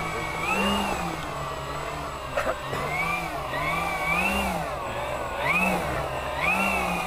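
Electric motors and propellers of a radio-controlled B-17 Flying Fortress model run on the ground, repeatedly throttled up and down, so the pitch rises and falls about once a second. A short click comes a little over two seconds in.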